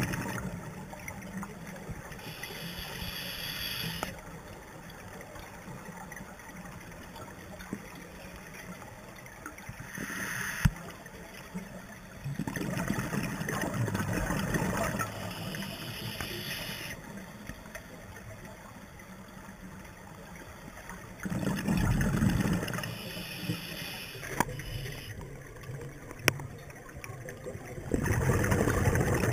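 Scuba diver breathing through a regulator underwater: three gurgling bursts of exhaled bubbles several seconds apart, with stretches of hissing inhalation between them. There are a few sharp clicks.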